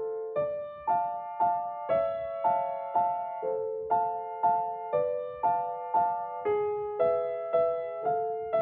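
A slow, gentle melody played one note at a time on a piano or electric keyboard, about two notes a second, each note fading before the next is struck.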